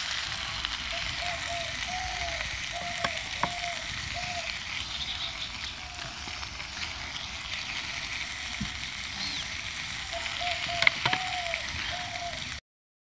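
Onion and spice masala sizzling as it fries down with a little water in a nonstick pan, with a few light knocks of a silicone spatula against the pan. The sizzle cuts off suddenly near the end.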